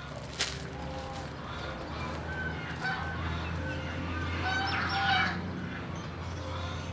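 Domestic fowl calling: a series of short, pitched clucks and honks, loudest and most crowded about five seconds in, over a steady low hum.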